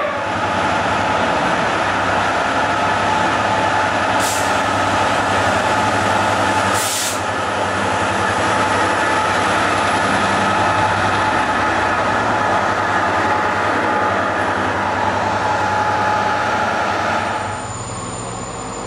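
GB Railfreight Class 66 diesel locomotive's EMD two-stroke V12 running steadily as it hauls hopper wagons close past. Two short hisses of air come about four and seven seconds in. The sound drops abruptly shortly before the end.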